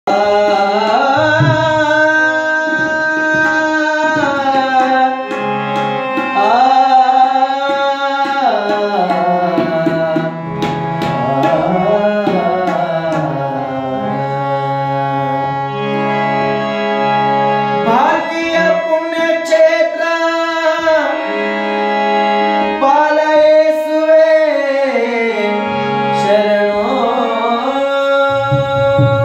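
A man singing a Kannada Christian devotional song, accompanying himself on harmonium, with tabla drums keeping the rhythm.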